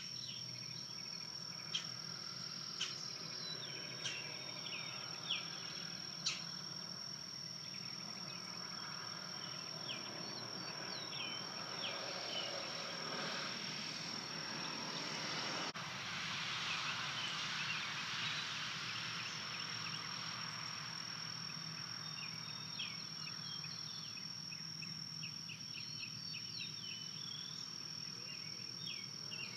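A steady high-pitched insect trill, with scattered short chirps over it and a soft rushing noise that swells around the middle.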